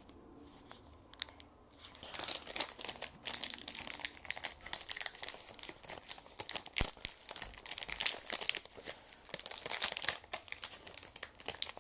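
Plastic candy-bar wrapper crinkling and tearing as it is opened and handled, a dense crackle starting about two seconds in.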